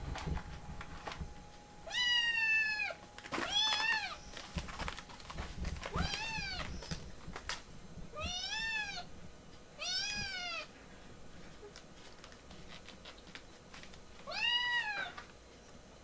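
Baby kitten meowing six times, high-pitched calls whose pitch rises and falls in each.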